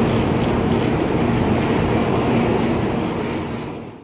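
Shinkansen bullet train rolling slowly along a station platform: a steady rumble of wheels and running gear with a faint hum, fading away near the end.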